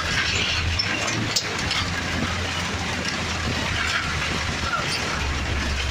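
Toyota 1NZ-FE four-cylinder engine in a stripped Lada VAZ 2105 running steadily while driving slowly over a rough dirt road, its note dropping slightly about five seconds in, over a constant rattling road noise with a few sharp clicks.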